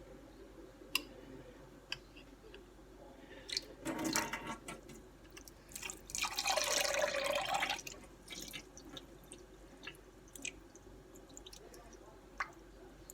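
Excess liquid from a bowl of oatmeal being drained into a sink past a butter knife: a short splash about four seconds in, then a longer pour and splash lasting a couple of seconds, with dripping and a few light clicks.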